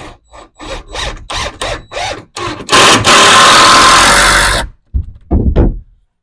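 Power driver sinking deck screws into wooden truss members: a string of short trigger bursts, then a steady run of about two seconds as a screw is driven home and pulls the joint tight, then a couple more short bursts near the end.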